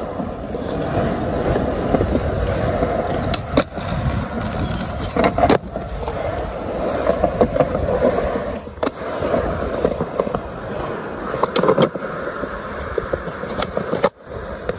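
Skateboard wheels rolling over concrete, a steady rumble, with a few sharp clacks along the way.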